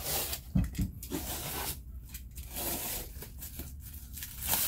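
Plastic stretch wrap around a pallet of cardboard boxes being slit with a box cutter and pulled loose, in a series of irregular tearing, crinkling bursts, with a couple of low thumps of handling about a second in.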